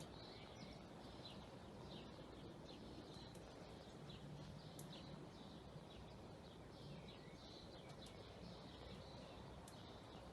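Faint bird chirps, many short calls repeating throughout, over a steady low background hiss.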